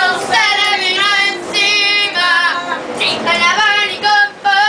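A woman singing a song unaccompanied in a high voice, holding long notes in short phrases with brief breaks between them.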